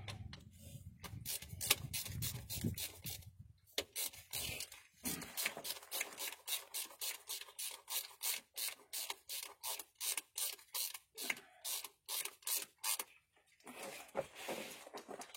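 A hand tool worked in short, quick rasping strokes, about three a second, with a brief pause near the end.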